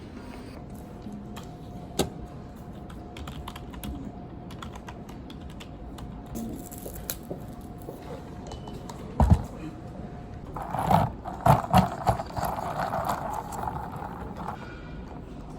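Typing on a computer keyboard: a quick, irregular patter of key clicks. A heavier thump comes about nine seconds in, followed by a louder stretch of noise lasting a few seconds.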